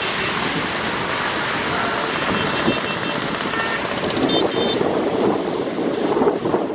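Loaded goods train's covered wagons rolling past, a steady rumble of steel wheels on the rails that drops off just as the last wagon and brake van go by.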